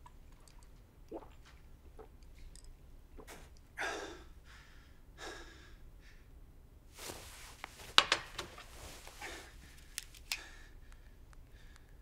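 A man sighing or breathing out heavily twice, followed by rustling with a few small sharp clicks and knocks.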